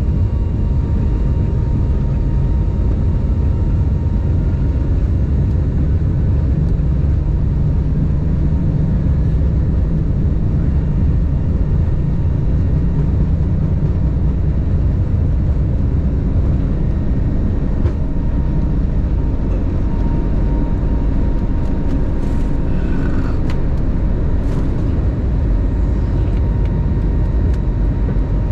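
Steady engine and rushing-air noise inside the cabin of an Airbus A321neo in operation, with a faint steady whine over a heavy low rumble.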